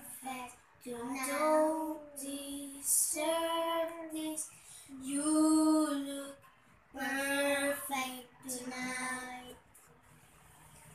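A boy singing a slow melody unaccompanied, in held phrases of a second or so with short breaks between them; the singing stops near the end.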